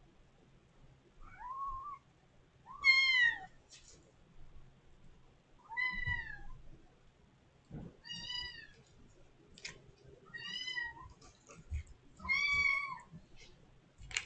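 A kitten meowing loudly and repeatedly: six drawn-out calls about two seconds apart, each rising then falling in pitch, the second the loudest. The kittens are crying at the door to be let out of the room.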